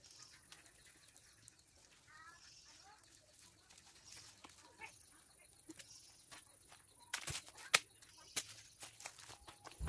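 Scattered clicks and rustling of a small tree's branches and leaves as a man climbs down it, with a cluster of sharp cracks about seven seconds in, the loudest sounds, as he reaches the ground. A chicken calls briefly about two seconds in.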